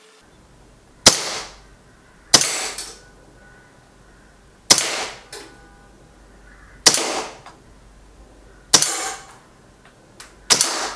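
Colt M45 CQBP, a CO2-powered blowback BB pistol, firing six single shots one to two seconds apart. Each shot is a sharp crack followed by a short echo.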